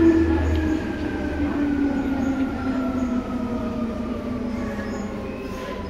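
Seibu 2000 series electric train running, its traction motor whine made of several tones all falling steadily in pitch as the train slows.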